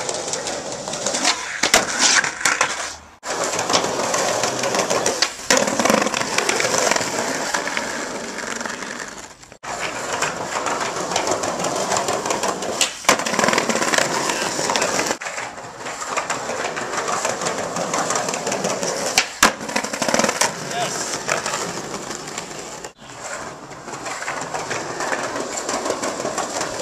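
Skateboard wheels rolling on rough paving, with sharp clacks of tails popping, boards flipping and landing. The sound cuts off briefly about six times, each time on a new attempt.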